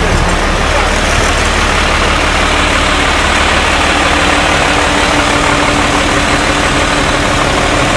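Loud, steady engine noise with a low hum under a dense, even roar, without any rise or fall in pitch.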